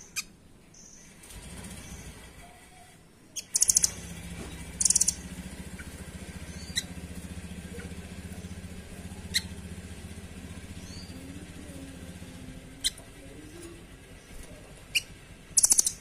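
Caged blue nuthatch calling: short, rapid, rattling high trills about three and a half seconds in, at five seconds and again at the end, with single sharp ticks between them. A low steady hum runs underneath through the middle.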